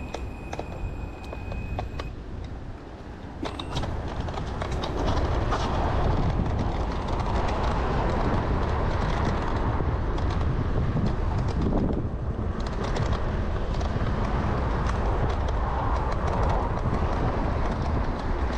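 Kaabo Wolf Warrior electric scooter under way on off-road tyres: wind buffeting the microphone and tyre rush swell about four seconds in as it gathers speed, then hold steady. A thin high whine sounds for the first two seconds.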